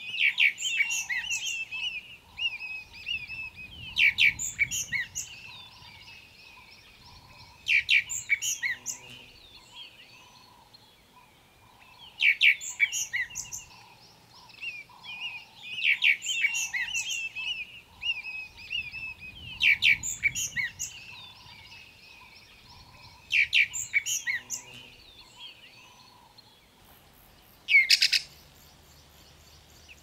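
Groundscraper thrush singing: short, loud phrases of quick whistled notes, repeated about every four seconds. Softer low notes from another bird run underneath.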